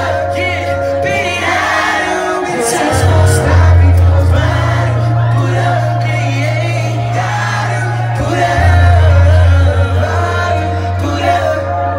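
Live music over a PA system: a heavy bass line with performers singing into handheld microphones.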